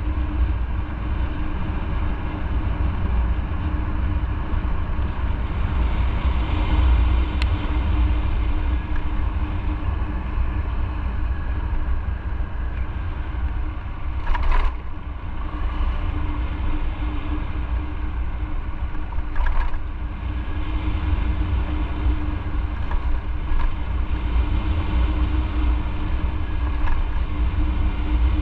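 Motorcycle on the move: a steady engine hum over a heavy low rumble, with two brief sharp sounds about five seconds apart midway through.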